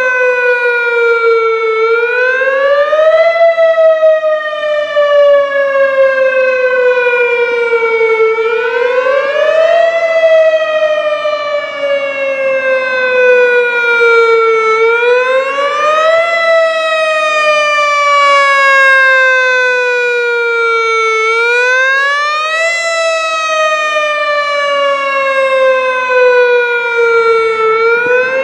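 Whelen WPS 3016 electronic outdoor warning siren sounding its wail tone for a monthly tornado siren test. The pitch rises quickly, then falls slowly over about five seconds, and the cycle repeats about four times.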